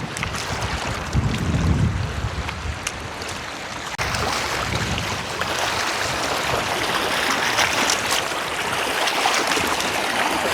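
Lake water washing against a rocky shore, with wind buffeting the microphone in low rumbling gusts during the first few seconds.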